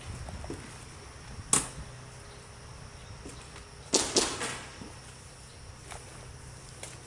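Airsoft gun shots: a single sharp snap, then a quick pair about two and a half seconds later, over soft rustling.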